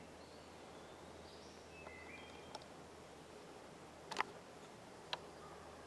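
Quiet woodland ambience: faint short chirps of small birds and a few sharp clicks, the loudest about four seconds in.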